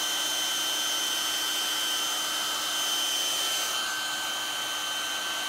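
Handheld hair dryer running steadily, an airy hiss with a motor whine, blown close onto a vinyl trim strip to heat and soften it for bending. The whine shifts slightly about four seconds in.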